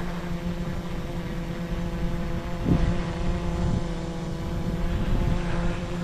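Autel EVO Lite+ quadcopter hovering, its propellers giving a steady hum while it struggles a little against gusty wind. Wind rumbles unevenly on the microphone underneath.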